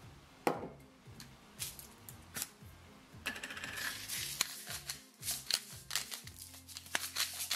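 Background music under a run of quick dry clicks and rattles, which get denser in the second half: a salt and pepper grinder being turned.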